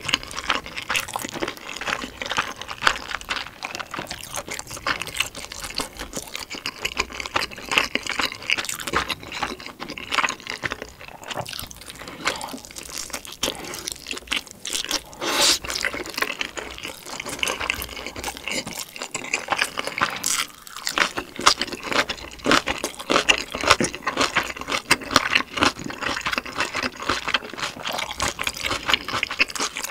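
Close-miked wet chewing and mouth sounds of a person eating dumplings: a dense, continuous run of small wet clicks and smacks.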